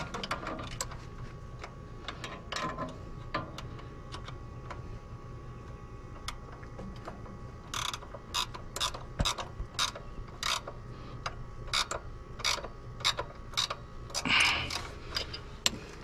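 Ratchet wrench clicking in short runs as a 14 mm bolt on a tractor's three-point hitch stabilizer chain is tightened, busiest about halfway through. A brief rushing sound comes near the end.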